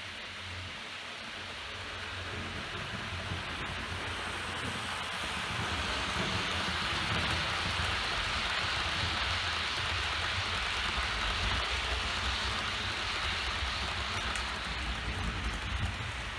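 Model freight train rolling past close by: a steady rushing hiss of wagon wheels on the rails with a low, fluttering rumble underneath, growing louder over the first few seconds as the wagons come near.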